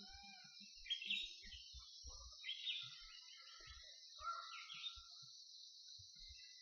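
Bird calls over a steady high-pitched insect drone, with three louder calls about one, two and a half and four seconds in.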